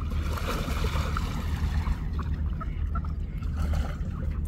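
Gentle lapping and small splashes of shallow river water along a shoreline, with mallard ducks paddling and splashing nearby, over a steady low rumble.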